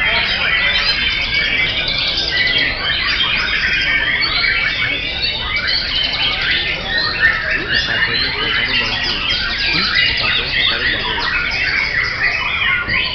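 Several caged white-rumped shamas (murai batu) singing at once in contest: a dense, unbroken mass of overlapping whistles and trills.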